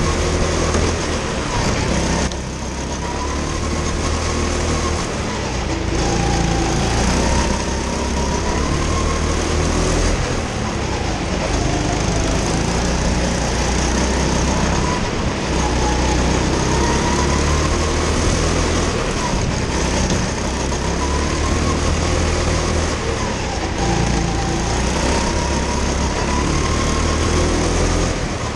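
Go-kart's small petrol engine heard on board at racing speed. Its pitch climbs and falls again and again through the lap, with a short dip in level about two seconds in.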